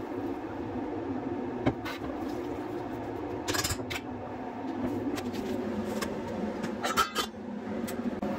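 Metal cooking pot knocking and clattering a few times as it is handled at a kitchen sink, over a steady background hum.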